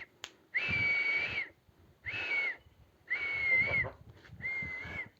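A person whistling four times with the mouth to call a puppy over. Each whistle is a steady, breathy note lasting about half a second to a second.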